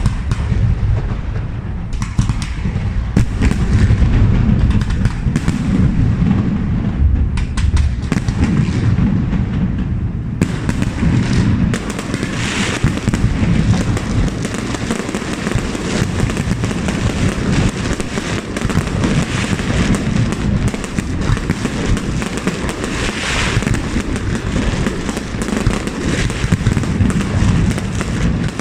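Fireworks display: a continuous barrage of deep booming shell bursts overlaid with many sharp bangs and crackling, the crackle growing denser about ten seconds in.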